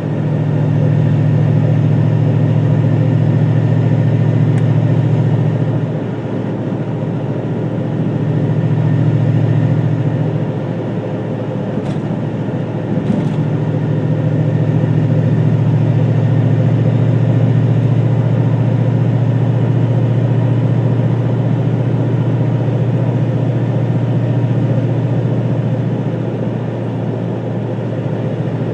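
2002 Ford Mustang GT's 4.6-litre V8 running, its sound swelling and easing several times, with two faint clicks about halfway through. The owner is chasing a weird noise from the transmission/clutch area.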